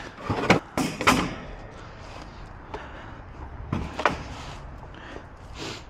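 Old wooden boards knocking and scraping against each other as they are pulled by hand from a pile of lumber: a quick run of sharp clatters in the first second or so, two more about four seconds in, and one near the end.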